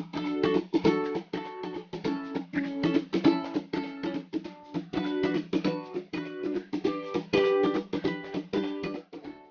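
Background music: a plucked-string tune with a quick, even rhythm of notes, fading out near the end.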